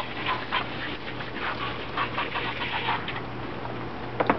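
A dog panting in short, quick breaths.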